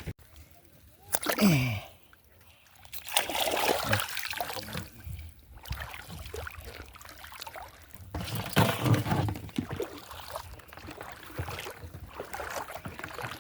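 Water splashing and sloshing in irregular bursts, with a brief falling tone about a second and a half in.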